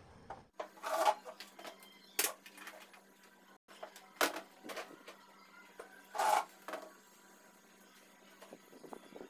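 Several separate knocks and clinks of kitchen items being picked up and set down on a counter, over a low steady hum.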